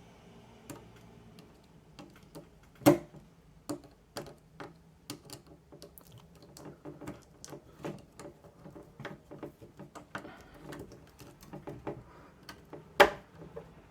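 A screwdriver driving a small screw into a hard drive tray: irregular clicks and ticks, a few a second, with a sharp knock about three seconds in and another near the end.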